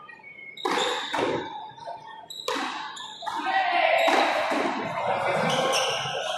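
A pelota ball smacking hard off the front wall and floor of an indoor frontón court, each hit ringing and echoing around the hall, several hits about a second apart. From about three seconds in, a loud swell of crowd noise fills the hall.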